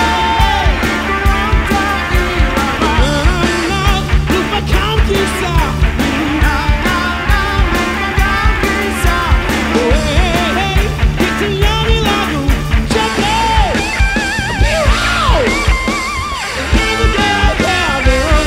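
Live rock band playing: a male singer over electric guitars, bass guitar and a drum kit keeping a steady beat. About two-thirds of the way through, higher wavering, bending melody lines take over.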